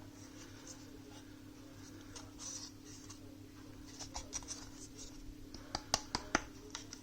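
Puzzle box being handled: soft scraping and rubbing, then several sharp small clicks and taps near the end, over a steady low electrical hum.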